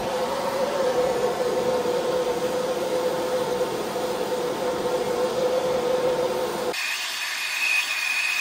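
Steady, loud rushing of a heating tool warming the metal tip used to melt a notch into a jet pump's plastic wear ring. About seven seconds in, it switches abruptly to a higher, thinner tone.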